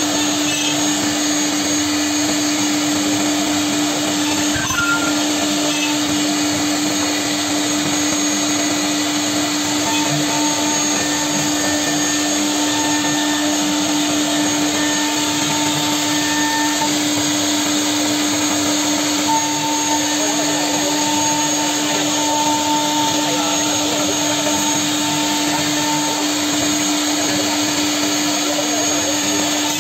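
A Holztek RT1325V CNC router's spindle runs with a steady whine while its bit cuts circles through a plywood sheet. Under it comes the rushing of the dust-extraction hose drawing off the chips.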